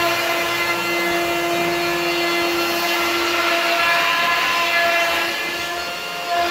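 Handheld plunge router running at full speed with a steady motor whine, its bit cutting into the face of a long wooden board to flatten it.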